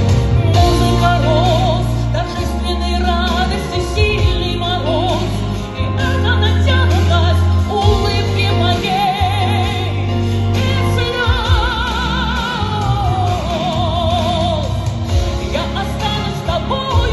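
A woman singing long held notes with strong vibrato over instrumental accompaniment with a heavy bass. Past the middle she holds a high note, then lets the line fall away.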